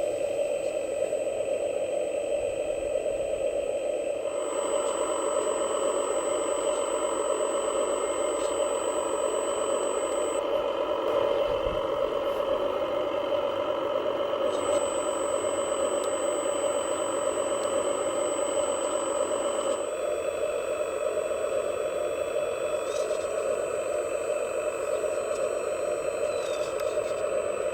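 Radio-controlled model truck's motors running with a steady mechanical whir. A brighter layer of sound cuts in about four seconds in and changes abruptly about twenty seconds in, as a drive or function is switched.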